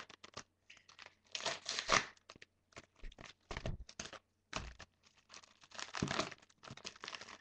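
Padded paper mailer envelope being torn open and handled: a string of irregular tearing and crinkling bursts.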